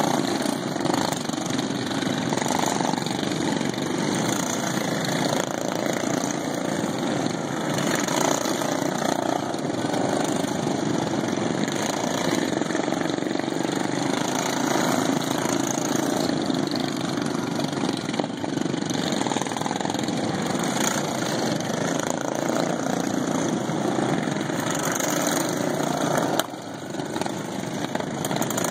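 Several racing lawn mowers running around the track together, their factory-stock single-cylinder engines making a steady, continuous din.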